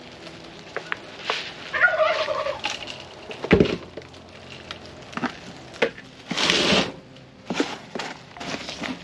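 A short warbling poultry call about two seconds in, among the sounds of a plant being repotted: a sharp knock of the plastic nursery pot at about three and a half seconds, a brief rustle of soil and leaves a little after six seconds, and scattered small clicks.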